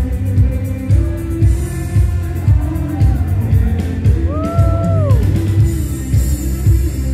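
Electric guitar playing rock-style music over a band with a steady beat. About four seconds in, a held note slides up, sustains and slides back down.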